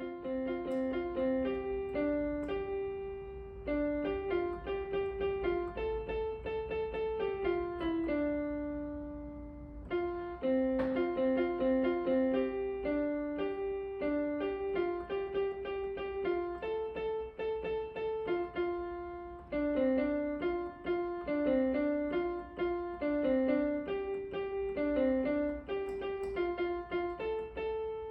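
Background piano music: a gentle melody of single notes, pausing briefly about eight seconds in before carrying on.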